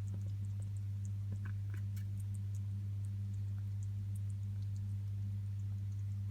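A steady low electrical hum with a weaker overtone above it, over faint scattered small ticks and clicks.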